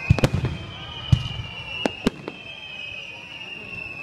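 Aerial firework shells bursting in a series of sharp bangs: two at once at the start, another about a second in, then three in quick succession around two seconds in.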